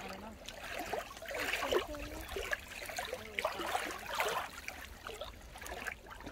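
Water lapping and splashing close by, in uneven washes about once a second, the sound of small lake waves at the shoreline.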